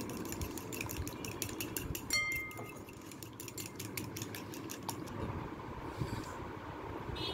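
Fork beating an egg in a ceramic bowl: rapid clinks of the metal fork against the bowl, several a second, with one louder ringing clink about two seconds in. The beating stops about five seconds in, leaving a steady low background noise.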